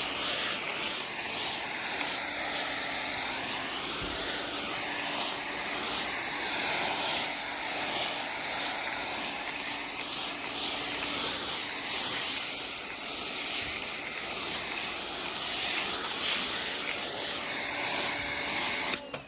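Electric pressure washer running with a foam cannon spraying snow foam: a steady hiss of spray over a faint motor hum, swelling and fading as the spray is swept. It cuts off suddenly near the end.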